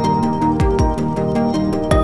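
Background music of long held notes, with deep drum hits that drop in pitch: two in quick succession a little after half a second in and another near the end.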